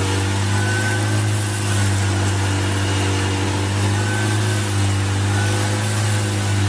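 Engine running steadily at constant speed with a deep, even drone.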